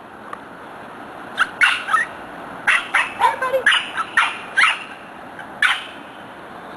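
Puppies yipping in a string of short, high calls from about a second and a half in, over a steady background hum.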